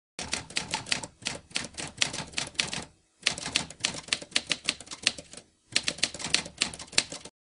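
Typewriter keystroke sound effect: rapid clacking keys in three runs, with brief pauses about three seconds in and again before the last run, as a title is typed on letter by letter.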